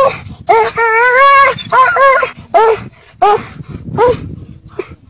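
Dog yelping and whining in a string of high-pitched cries while it fights a monitor lizard. The first cry lasts about a second and the rest are shorter, each rising and falling in pitch.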